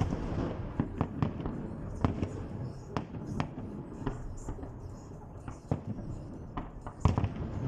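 Fireworks salute: irregular sharp bangs and pops over a steady rumble, with a louder cluster of bangs about seven seconds in.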